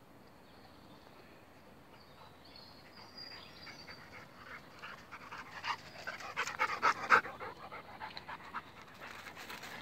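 Black Labrador panting as it runs up, its paws crunching through dry fallen leaves in quick crackles that grow loud about two-thirds of the way in as it reaches the microphone.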